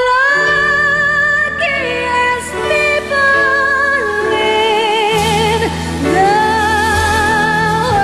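A woman singing a slow ballad into a handheld microphone, holding long notes with a wavering vibrato over a steady instrumental backing.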